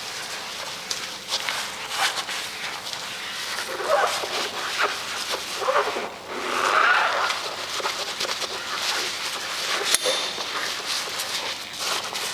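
Yellow rubber-gloved hand scrubbing a porcelain urinal, rubber and scrub pad rubbing on the wet surface in quick strokes, with short squeaks now and then, the longest about two-thirds of the way through.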